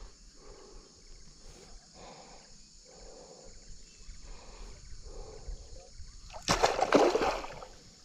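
Faint water sounds repeat about once a second, then about six and a half seconds in comes a loud splash lasting about a second: a giant snakehead (toman) hitting the angler's lure at the surface and barely getting hooked.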